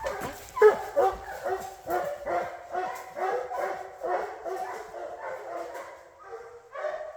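A pack of hunting hounds barking rapidly, several dogs overlapping, baying at a bear they have treed.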